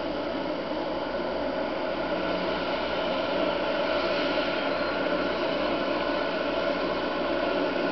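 Long-reach demolition excavator working, its diesel engine and hydraulics running steadily and getting a little louder about two seconds in.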